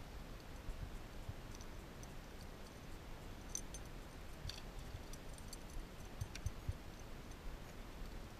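Faint wind rumble on the microphone, with a few light, scattered clicks and ticks, most noticeable around the middle.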